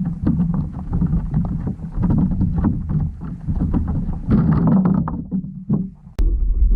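Underwater noise picked up by a GoPro submerged in the water: a low rumble with many small crackling clicks over it. It dips briefly near the end, then a sharp click and the low rumble comes back.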